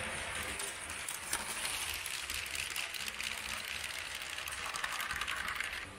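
Motorised LEGO cargo train running close by on plastic LEGO track, its wheels rattling with many quick clicks over the rail joints and switches.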